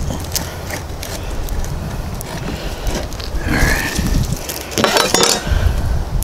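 A knife scoring a peel-and-stick tile sheet along a metal speed square, with clicks and two louder scrapes as the square and tile are moved on the bench.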